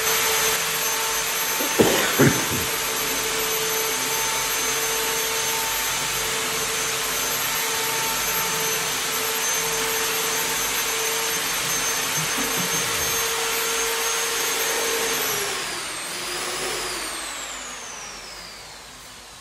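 An electric motor machine running steadily with a whine, then switched off about fifteen seconds in, its pitch sliding down as it winds down. Two sharp knocks about two seconds in.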